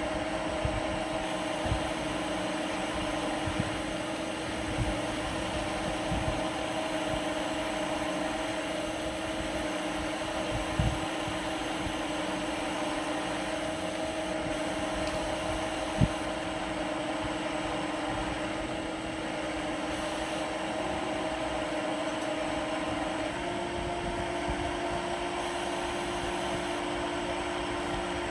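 CNC lathe running a steady machine hum with a held pitch that steps up slightly about 23 seconds in, with scattered light clicks and one sharp click about 16 seconds in.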